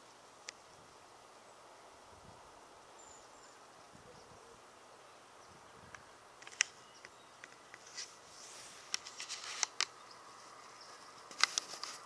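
Faint outdoor hiss, then from about six seconds in a scattered series of sharp clicks and brief rustling, the loudest clicks coming near the end.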